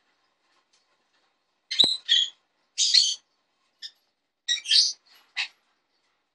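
Jenday conure giving a run of short, high, harsh chirps, about seven over a few seconds, some in quick pairs.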